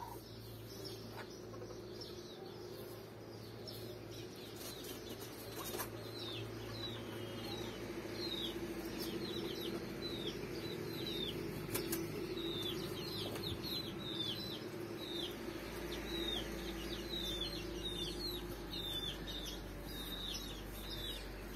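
Chicks peeping: a steady run of short, high chirps that fall in pitch, several a second, starting about a quarter of the way in and going on to the end.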